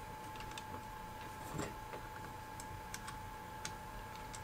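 Light clicks and taps from an angle grinder and its guide being handled and lined up on a steel bar, with one duller knock about a second and a half in; the grinder is not running. A faint steady whine sits underneath.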